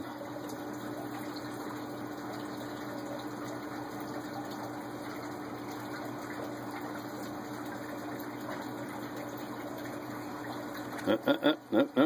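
Steady, water-like rushing noise with a low, even hum underneath, unchanging throughout; a voice comes in near the end.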